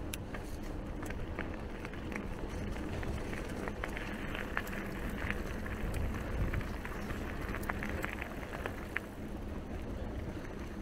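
Mountain bike rolling along a trail: steady tyre noise with scattered clicks and rattles from the bike and the ground.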